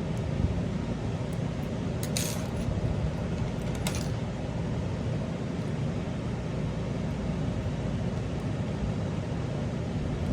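A steady low background hum, with a few small sharp metallic clicks about two and four seconds in as small metal marker parts and tools are handled while set screws are undone.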